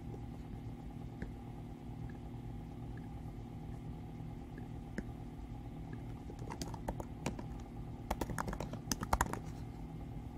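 Typing on a computer keyboard: a quick run of keystrokes in the second half, over a steady low hum, with a few single clicks earlier.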